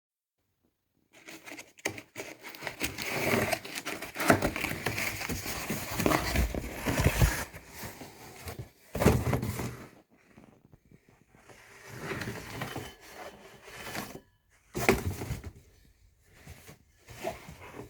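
Packaging being handled and opened: irregular crinkling, scraping and tearing in spells, busiest in the first half, then shorter bursts with pauses between.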